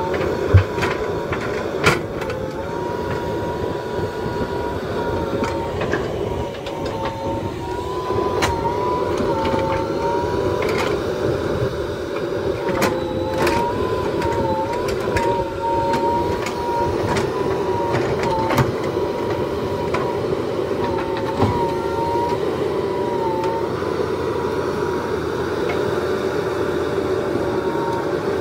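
JCB 3DX Super backhoe loader's four-cylinder diesel engine running under load with its hydraulics working the backhoe arm, a whining tone that wavers in pitch as the controls are worked. Occasional sharp knocks stand out over the steady machine noise.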